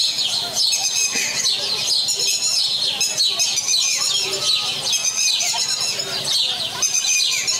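A dense recorded chorus of many songbirds chirping and trilling, played back over the stage sound system.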